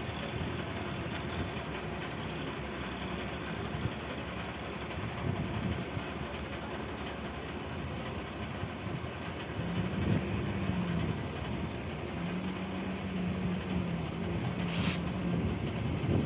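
Fishing boat's engine running steadily under wind and choppy-sea noise. About ten seconds in, a steady hum comes in and the sound grows a little louder. A brief hiss comes near the end.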